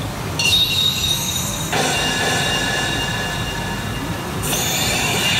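Hokuto no Ken pachinko machine's electronic sound effects: shrill, high-pitched tones that switch abruptly about half a second in, near two seconds and again near the end, as the battle reach resolves to a winning 3.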